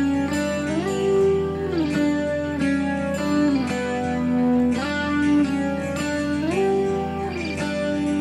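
Background guitar music, with held notes that slide up and down between pitches.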